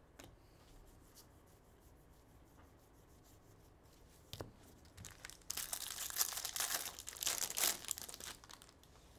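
A sharp tap, then the foil wrapper of a Bowman baseball card pack torn open and crinkled for about three seconds.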